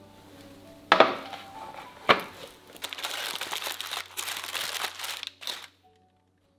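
Metal baking tray set down on a wooden table with two sharp knocks about a second apart. Then a few seconds of aluminium foil and baking paper crinkling as the wrapping is pulled open.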